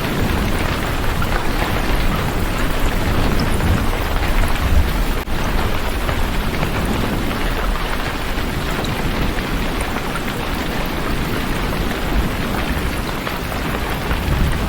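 Steady rain, a continuous even hiss with a low rumble underneath; the sound drops out for a split second about five seconds in.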